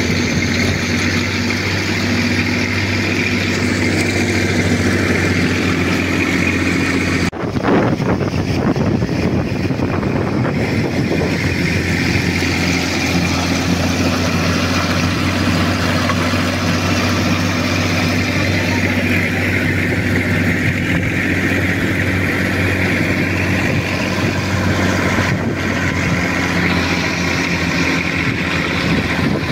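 Tractor diesel engine running steadily as it drives a winch drum that hauls in a beach seine net rope, with the surf washing in behind it.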